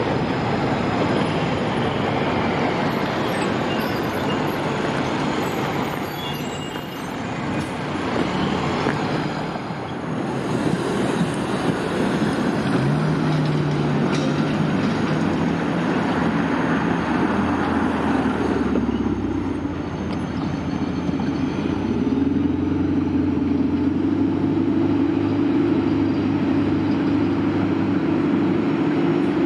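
City street traffic: low-floor electric trams running on the street tracks, with cars passing. A steady low hum sets in about two-thirds of the way through.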